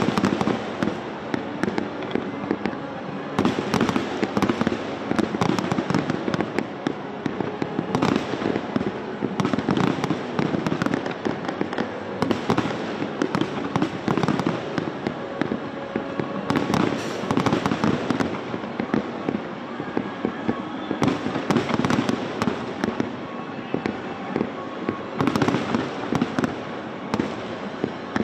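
Large aerial fireworks display: a dense, unbroken run of shell bursts, bangs and crackling. Heavier flurries of rapid reports swell up every four or five seconds.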